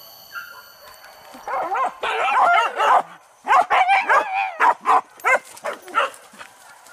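Hunting dog yelping and whining in excited cries that bend in pitch: a run of cries starting about a second and a half in, a short break, then more cries breaking into short separate yelps near the end.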